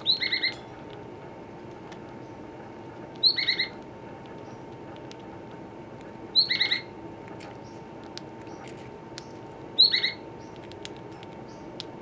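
A pet bird's short chirping call, a quick run of chirps repeated four times, about every three seconds. Between the calls come faint scattered ticks of a parrotlet nibbling cork.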